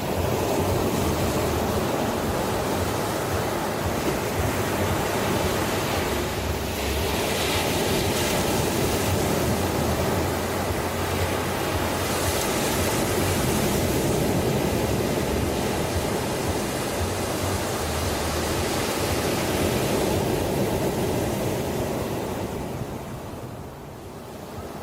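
Ocean surf: waves breaking and washing in a continuous rush that swells and ebbs, easing off near the end.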